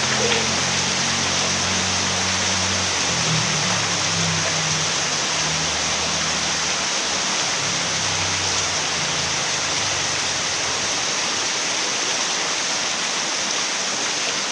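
Steady rain falling, an even hiss. A low hum sits underneath for the first ten seconds or so, then fades away.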